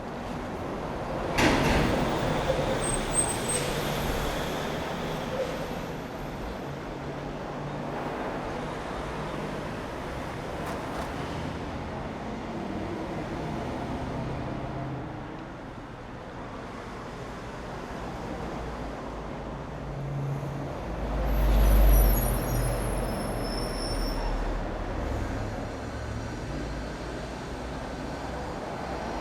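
Continuous city road traffic: vehicles passing steadily. About two-thirds of the way through, a heavy vehicle passes close with a low rumble and a high-pitched squeal.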